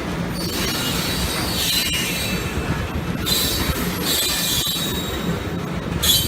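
Slow-moving freight train rolling past, its wheels squealing on the rails in stretches over a steady low rumble.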